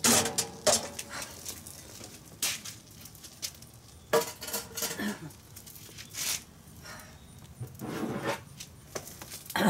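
Lit charcoal briquettes clattering out of a metal chimney starter onto the grill grate at the start, followed by scattered metal clinks and knocks.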